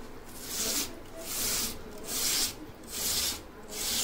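Raw peeled potato being rubbed over a hand grater into water: a steady run of rasping strokes, about five in four seconds, each a short scraping hiss.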